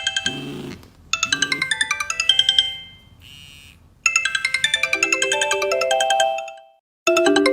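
Mobile phone incoming-call ringtones: quick electronic melodies of fast repeating bell-like notes in looping phrases. One ringtone breaks off near the end and a new one starts.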